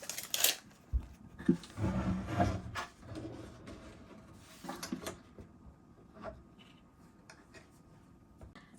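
Drawer and its slide hardware in a wooden cabinet being handled and adjusted: a knock about a second in, a couple of seconds of rubbing and scraping, then scattered small clicks and knocks.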